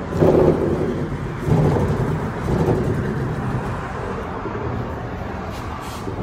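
Foosball table rods spinning in their new, freshly greased insert bearings: a low rumbling whir that comes in surges, strongest just after the start and again about a second and a half in.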